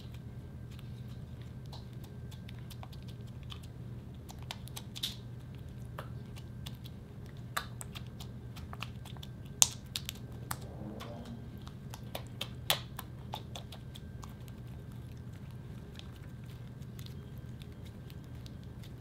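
White slime being pressed, kneaded and folded by hand, giving scattered wet clicks and small pops, with two sharper pops about halfway through, over a steady low hum.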